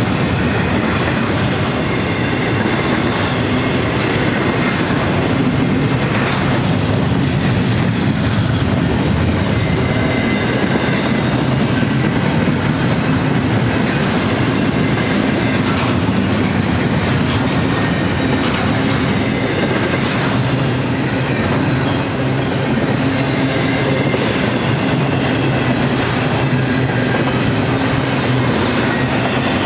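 Union Pacific double-stack intermodal train's loaded container well cars rolling past, a loud, steady noise of steel wheels running on the rails.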